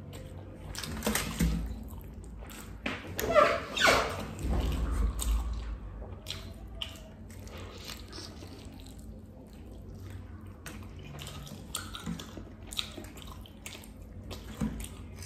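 Close-up eating sounds of a person chewing roast chicken: wet chewing, lip smacks and small clicks from the mouth, with a few louder bites and tearing of meat by hand.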